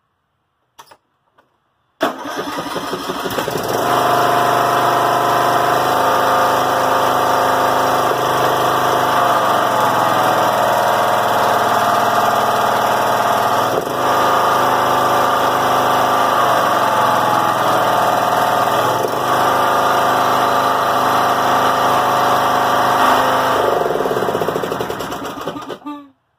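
Briggs & Stratton Intek 17 hp single-cylinder engine on a John Deere L100 riding mower starting about two seconds in and running fast, its pitch rising and falling a few times, then shutting off near the end. It runs too fast even at low throttle, which the owner traced to the governor linkage spring.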